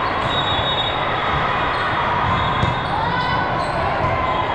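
Steady din of a busy volleyball gym: balls being hit and bouncing on the courts, with faint voices, echoing in a large hall.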